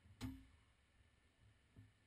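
Faint clicks of a hand tool working a bolt on the radiator's metal support bracket: a sharp click about a quarter second in with a short ring, and a softer one near the end.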